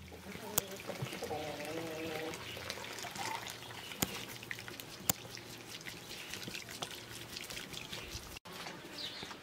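Blended tomato and chile sauce pouring through a wire-mesh strainer into a pot of broth, trickling and splashing, with a few sharp clicks.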